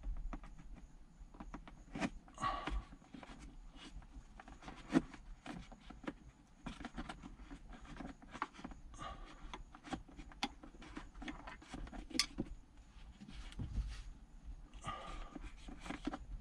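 Quiet scraping and a handful of sharp clicks as a dash cam power cable is pushed up and tucked into the headliner edge above the windshield, the cable rubbing against the plastic trim.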